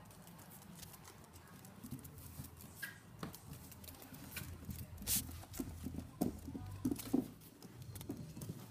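French bulldog puppy's paws and claws pattering on a wooden floor as it runs and plays, with scattered light knocks that come thicker and louder about halfway through.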